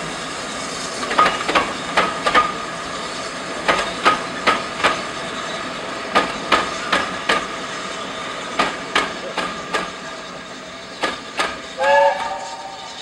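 Railway coaches rolling past behind a steam locomotive: the wheels click over the rail joints in quick groups of two to four as each bogie passes, fading as the train draws away. A short pitched note sounds near the end.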